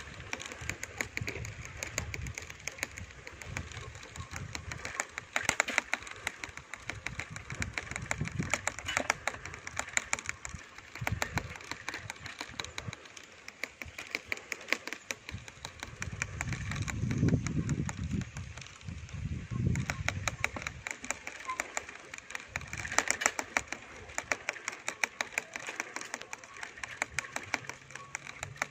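Outdoor ambience on a handheld recording: a constant rapid crackle of clicks, with gusts of wind rumbling on the microphone, strongest about two-thirds of the way through.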